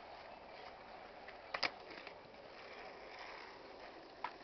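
Faint outdoor background noise with a brief sharp click about a second and a half in and another near the end.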